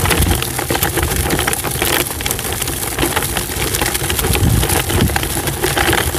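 Steady rumbling noise with constant crackling, the sound of wind and handling on a phone microphone.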